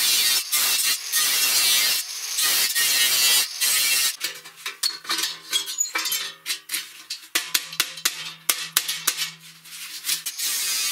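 Angle grinder with a cutting disc cutting galvanized sheet steel in short passes for about four seconds. Then come sharp metallic clicks and taps from handling the metal, under a steady low tone, before a loud grinding noise starts again near the end.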